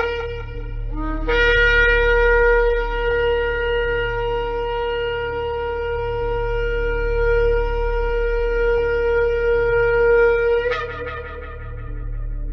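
Shofar sounding one long steady blast of about nine seconds, which breaks suddenly upward in pitch at the end and fades. It starts with a brief low note and the tail of an earlier blast, over a steady low hum.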